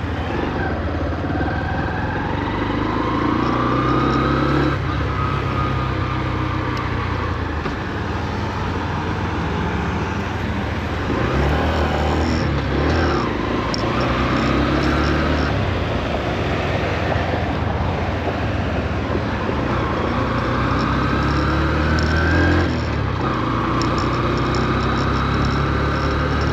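Honda CB125F's 124 cc single-cylinder engine pulling through the gears at moderate revs, its pitch rising steadily and then dropping at each upshift, three times. The engine is new and is being run in, so it is kept well below high rpm.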